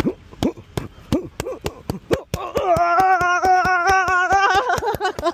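Boxing gloves striking focus mitts in a rapid flurry, about five punches a second, with short grunts on the early punches. About halfway through, a long held wavering tone starts over the continuing punches.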